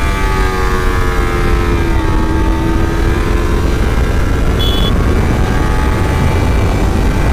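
Kawasaki Ninja 300's parallel-twin engine running at a steady cruise; its pitch eases slightly over the first two seconds and then holds level. Heavy wind rumble on the microphone runs under it.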